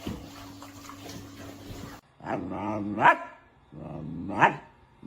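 A dog giving two drawn-out calls about a second apart, each rising in pitch and ending in a loud bark, after a steady hum in the first two seconds.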